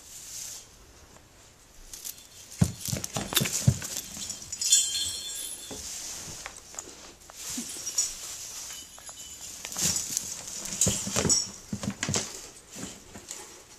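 Rustling and crackling of Christmas tree branches and light strings, with scattered knocks and clicks, as a kitten scrambles and bats at the lights. It starts about two seconds in and comes in irregular bursts.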